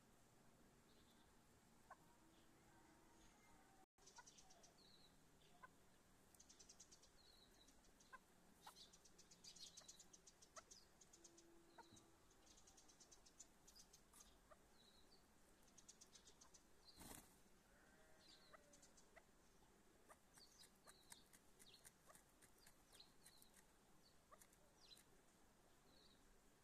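Faint bird chirps and clucks, short calls repeating every second or so with bursts of fast ticking in between, and one sharp click about 17 seconds in.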